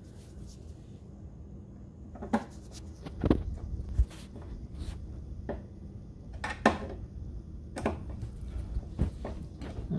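Irregular clicks and knocks of the metal parts of a full-motion TV wall mount being handled and fitted by hand, about eight over several seconds, starting about two seconds in.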